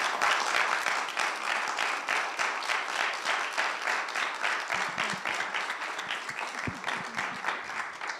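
Church congregation applauding, with dense clapping that slowly dies down, and a few low thumps in the second half.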